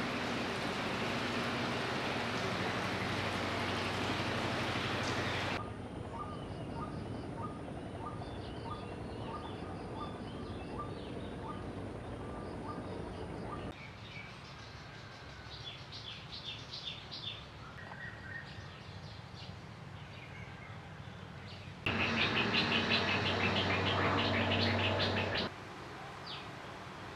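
Rain falling steadily, cutting off suddenly about five seconds in. Outdoor ambience follows: a chirp repeating about twice a second over a faint high steady tone, then birds chirping, louder for a few seconds near the end.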